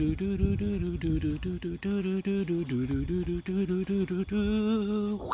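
A person's voice making rapid, repeated wordless clucks at a nearly steady pitch, a chicken imitation for a plush chicken puppet, ending on a longer drawn-out call.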